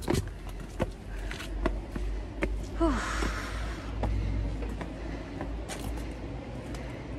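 Footsteps on a hard path at a walking pace, over a steady low rumble of wind or distant traffic. About three seconds in comes a short falling breathy vocal sound, like a gasp or sigh.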